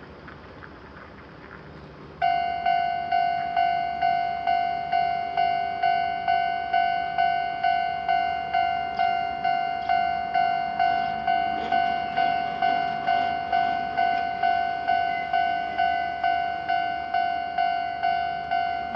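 Japanese railroad crossing warning bell starting up about two seconds in. It rings a steady, evenly repeated ding about twice a second, each strike fading before the next, which signals an approaching train.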